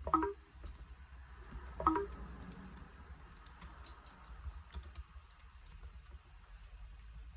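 Keys clicking on a MacBook Pro A1502's keyboard as it is tested after a screen replacement. Two short blips from the laptop's speakers come near the start and about two seconds in, as its sound output is checked.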